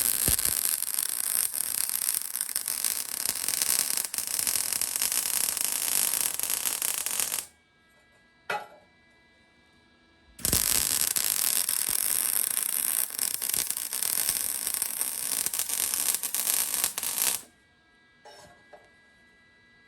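Electric arc welding of steel shelf brackets: the arc crackles steadily through two weld passes of about seven seconds each, with a pause of about three seconds between them.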